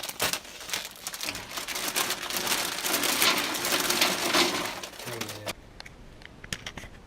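Plastic packaging crinkling as it is handled, a dense crackling for about five seconds that then gives way to a few light clicks.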